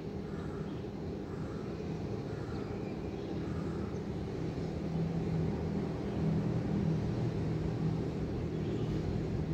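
Low rumble of city traffic, with a low engine drone that grows louder over the second half.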